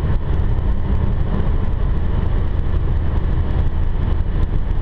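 Steady, deep engine and road noise heard from inside the cabin of a Renault Mégane RS 265, with its 2.0-litre turbocharged four-cylinder, cruising on the motorway.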